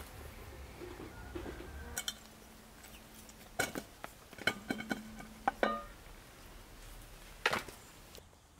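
A few sharp clinks and knocks of kitchenware: one about two seconds in, a quick cluster in the middle with a short ringing tone, and a last one near the end.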